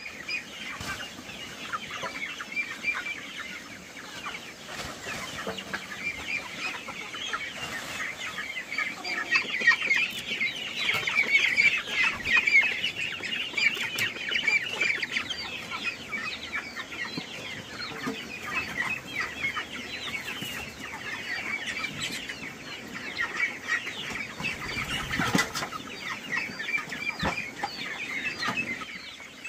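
A flock of young chickens chirping and clucking continuously, many birds at once, busiest about a third of the way through, with a few faint clicks.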